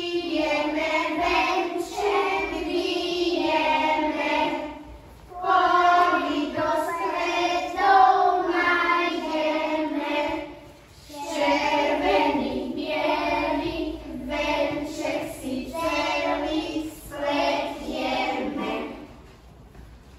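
A group of young children singing a song together in unison, in phrases with short pauses about five and eleven seconds in, stopping just before the end.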